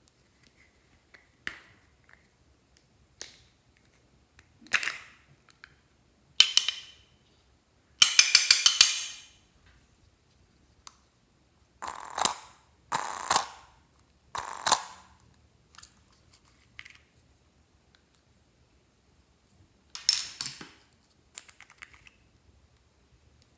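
Glossy slime being pressed and squished by hand, giving a series of separate sticky pops and clicks of trapped air. The loudest moment is a quick run of about six pops around eight seconds in.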